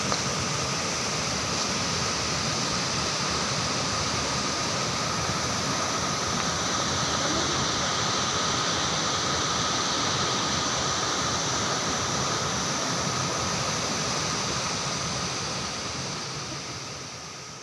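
Steady rushing of a mountain waterfall, with a thin steady high tone over it, fading out near the end.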